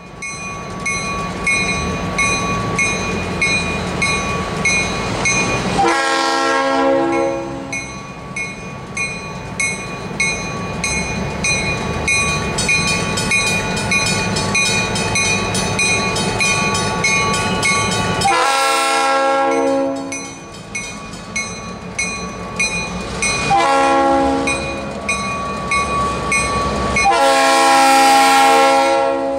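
EMD GP38-3 diesel locomotives approaching a grade crossing, sounding the horn in the long-long-short-long crossing pattern. The last long blast is the loudest. Under the horn the crossing signal bell rings steadily and the diesel engines rumble.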